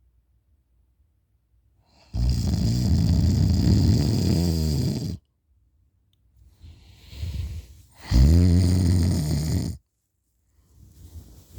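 A person snoring very loudly in open-mouthed sleep: two long snores, the first about three seconds and the second about a second and a half, with a softer breath between them.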